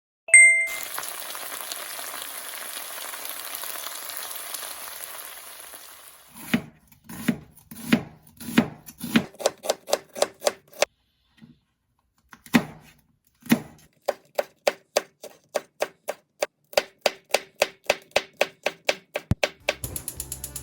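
A short beep, then a steady hiss for about six seconds, then a kitchen knife chopping on a cutting board in runs of sharp knocks, quickening to about three strokes a second in the second half.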